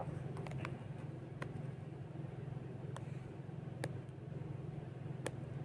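A phone handled close to its microphone: a few scattered clicks and rubs over a steady low hum.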